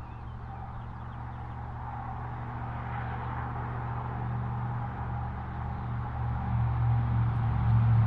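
A low, steady engine hum that grows steadily louder throughout.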